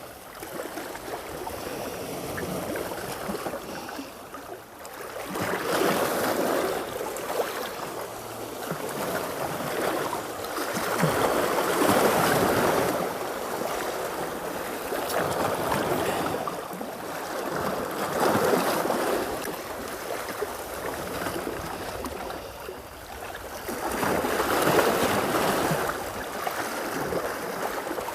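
Sea waves washing onto the shore, each one swelling and falling away about every six seconds.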